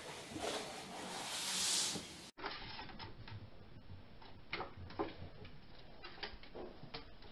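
Broom bristles swishing across a wooden floor, loudest about two seconds in. After a cut, scattered light ticks and taps of a kitten's claws and paws on a bunk-bed slide.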